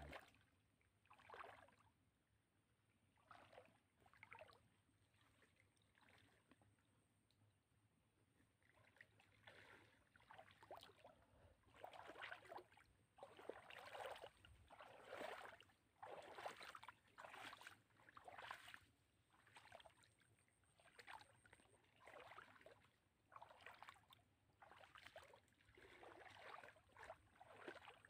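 Faint sloshing of legs wading through shallow water, a swish with each step. The steps are sparse at first, then come about once a second and a little louder from about a third of the way in.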